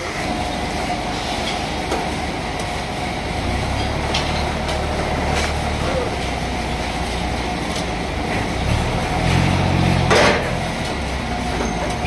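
Forklift engine running over a steady mechanical din, revving up twice, about three and a half seconds in and again around nine seconds, as it positions a heavy log. There is a short burst of noise about ten seconds in.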